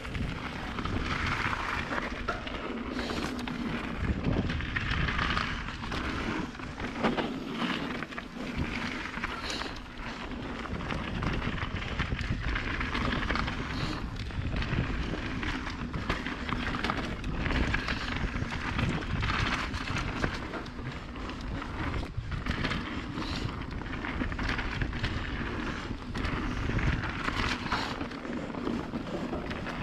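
Mountain bike riding fast down a dirt singletrack. The tyres rush over the dirt and the bike rattles and knocks over bumps, with wind noise on the action camera's microphone.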